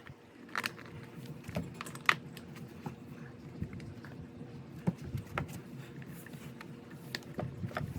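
Irregular light metallic clicks and taps of tools and small metal parts being handled while the pressure washer's carburetor is worked on, about a dozen sharp ticks, the loudest about two seconds in.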